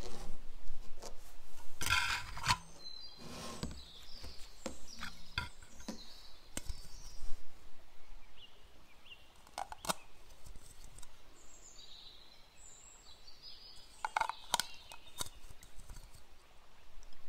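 Clear plastic dessert cups being handled, with scattered light clicks and taps of thin plastic, the loudest about two seconds in and again near the end.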